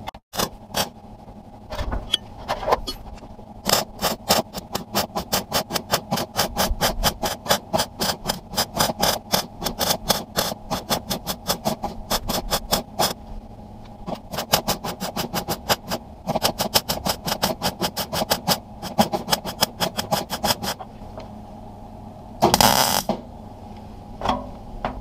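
MIG welder tack-welding an indicator hole shut in a steel car wing: runs of short, sharp crackles several a second, pausing briefly a few times and stopping about 21 seconds in. A brief louder burst of noise follows near the end.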